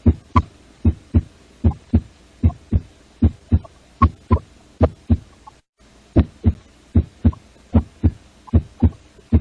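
Recorded heart sounds: a steady lub-dub, the first and second heart sounds in close pairs, about 75 beats a minute, with nothing heard between them: normal heart sounds with no murmur. The recording cuts out for a moment a little past halfway and then starts again.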